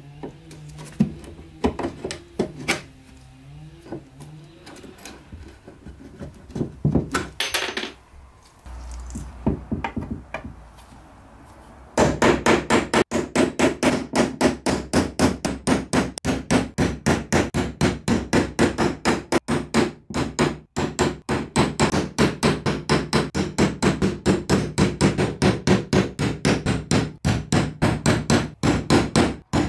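Hammer tapping on a nail punch against a wooden cabinet, quick regular light strikes about four or five a second, starting about twelve seconds in after a few scattered knocks and handling sounds.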